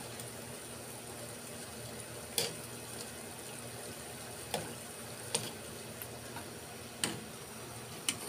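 Hot oil sizzling steadily around tikoy turon spring rolls shallow-frying in a wok, with about five sharp clicks scattered through it.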